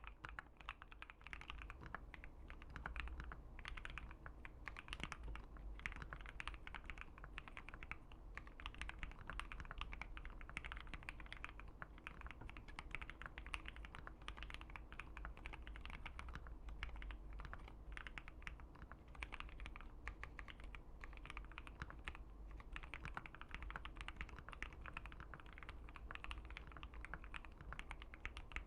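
Continuous typing on a Keychron Q1 mechanical keyboard with an FR4 plate, fitted with Gateron Milky Yellow linear switches: a steady run of key clacks.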